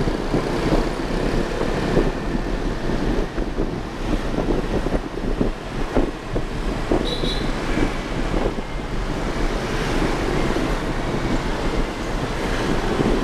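Motorbike ride through city traffic, heard from the pillion seat: steady engine and road noise from the bike and the traffic around it, with wind buffeting the microphone.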